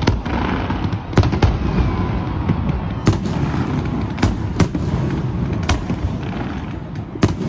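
Fireworks display: shells bursting in a continuous low rumble, with sharp bangs about once a second, two close pairs among them.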